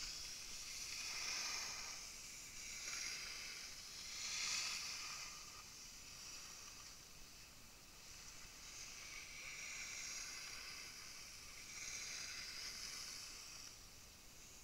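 Skis hissing and scraping over snow through a series of turns, a swell of hiss every second or two, fairly quiet.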